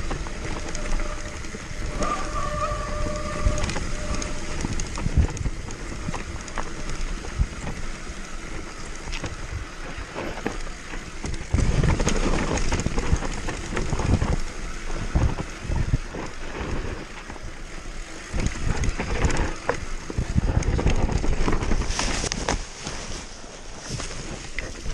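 Downhill mountain bike ridden fast over rough ground: wind on the microphone, and the bike rattling with frequent knocks and bangs. There is a brief squeal about two seconds in.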